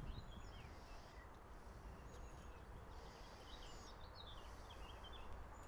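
Faint songbird chirps and short trills, many small calls scattered throughout, over a quiet low rumble of outdoor ambience.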